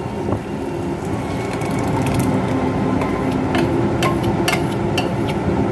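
Metal spoon scraping and knocking against a steel bowl as thick puree is emptied into a steel pan, several sharp clinks over a steady hiss.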